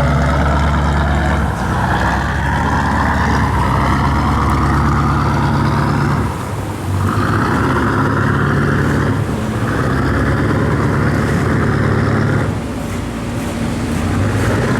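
A river cargo barge's engine running hard at full throttle through a sharp bend: a loud, steady engine drone with a rough, noisy exhaust over it. The sound eases briefly twice, about six and a half and twelve and a half seconds in.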